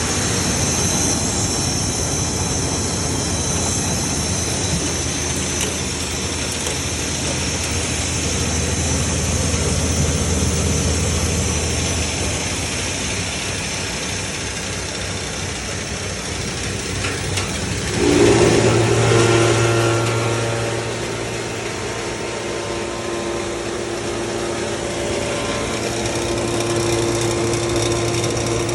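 Rice milling machine running steadily with a continuous mechanical drone. About 18 seconds in it briefly grows louder and settles into a different, steadier hum.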